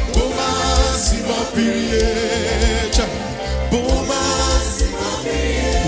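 Live gospel praise music: singing voices over a band with a steady bass line and drums, with cymbal splashes about a second in and again past the middle.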